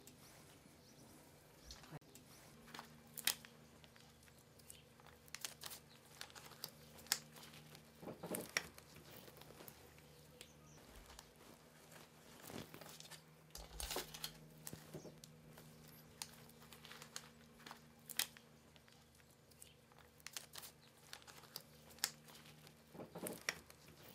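Quiet, scattered rustling and small clicks of newspaper and a scalpel as gloved hands skin a deer's head down to the skull. A faint steady low hum runs underneath.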